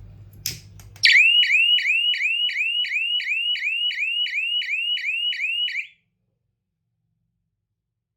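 Electronic fire-alarm sounder wailing: a high tone that sweeps upward about three times a second for about five seconds, then cuts off suddenly. A sharp click comes just before it starts.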